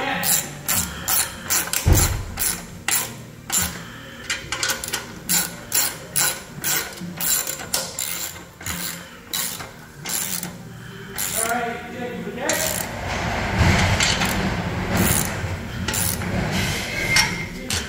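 Hand socket ratchet clicking in repeated runs, a few clicks a second, as the band-clamp nuts on an exhaust H-pipe are tightened.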